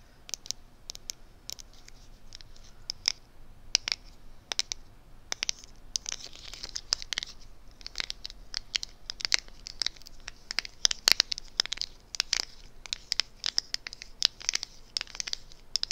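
Close-miked hands scratching, tapping and handling product packaging: irregular sharp clicks and scratches, getting busier about six seconds in.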